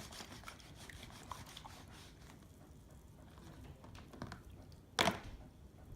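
Faint scattered small clicks and rubbing from a container holding a fidget spinner in soap being handled, with one short, sharp knock about five seconds in.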